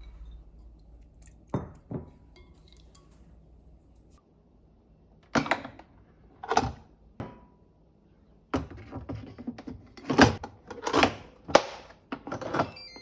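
Kitchen handling sounds: two soft thuds, then scattered knocks and a quick run of clinks of dishes and utensils near the end.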